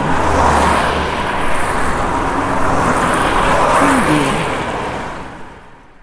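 Road traffic: a steady wash of cars and tyre noise going by on a busy road, swelling and easing, then fading out near the end.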